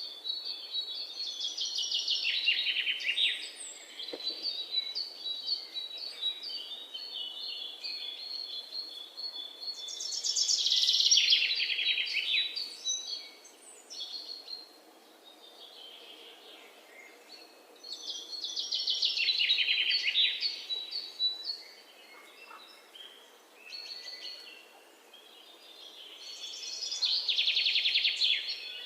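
Budgerigars chirping and warbling in chattering bouts, a louder burst roughly every eight or nine seconds with quieter scattered chirps between: the contented chatter of budgies in a happy mood.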